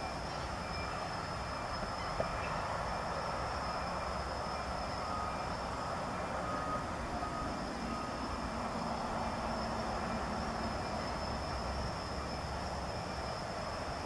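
Steady outdoor background noise, an even low rumble and hiss with a faint steady high tone, and no distinct bird calls.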